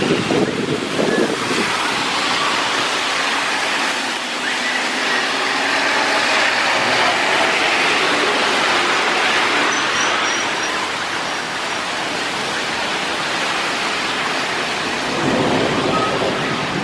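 A city bus passes close on a wet road. Its engine and the hiss of tyres on wet asphalt swell to a peak near the middle and then fade. Wind buffets the microphone at the start and again near the end.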